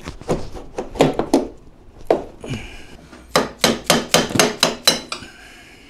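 Hammer blows on a snowmobile's front suspension control arm, driving it loose: a few scattered strikes, then a quick run of about seven blows at roughly four a second, starting about three and a half seconds in.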